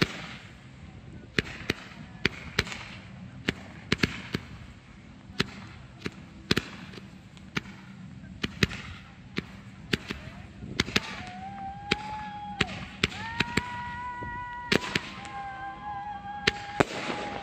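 Ground-fired fireworks going off without aerial shells: sharp bangs and pops from comets and cakes at about one or two a second over a hiss. In the second half they are joined by several steady whistles, each about a second long.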